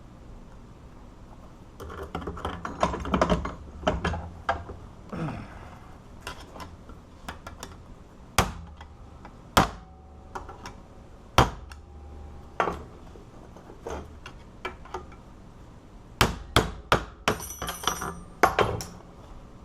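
Metal knocks, clicks and scrapes as the lock cylinder is worked out of a cut-open ACE padlock body: a busy run of rapid taps about two seconds in, single loud knocks a second or so apart through the middle, and another quick run of knocks with a brief metallic ring near the end.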